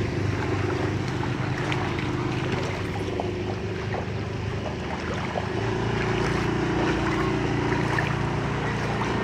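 Small engine running steadily while moving through shallow floodwater, with water washing and light splashing.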